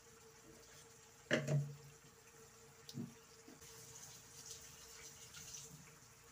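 Sardine and broccoli sauce simmering in a frying pan, a faint bubbling hiss that grows patchier past the middle. A sudden loud knock about a second in and a softer one at about three seconds break over it.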